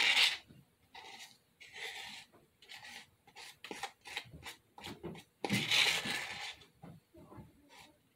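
A utensil scraping and tapping around the inside of a small plastic tub, digging out the last lightweight spackle stuck to its sides, in many short rasps. One louder, longer burst comes about five and a half seconds in.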